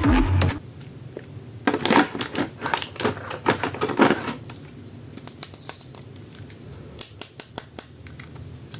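Handling of plastic toys and packaging: irregular small clicks and crinkles, denser around two and four seconds in, then sparse taps.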